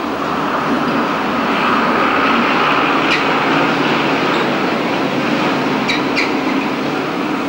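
Deutsche Reichsbahn class 50.35 steam locomotive approaching with a goods train: a steady rush of steam exhaust and running noise. Brief high squeaks come about three seconds in and twice in quick succession around six seconds.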